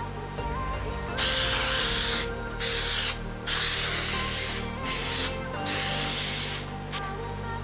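Hissing spray in four bursts of about half a second to a second each, with a brief one near the end, over background music.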